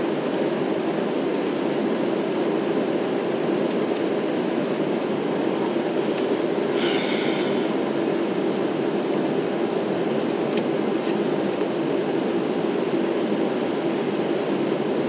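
Steady roar of jet engines and rushing air inside a passenger airliner's cabin during the climb after takeoff, with a short higher tone about halfway through.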